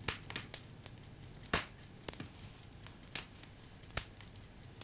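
A handful of sharp, short clicks and knocks at uneven intervals, about seven in under five seconds, the loudest about a second and a half in, over faint room hum.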